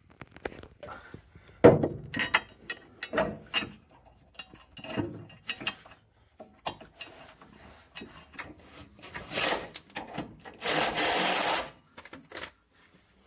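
Rubbing, scraping and light knocks as a person slides under a car on a concrete floor and handles the rear subframe brace and its bolts, with a steady scrape about a second long near the end.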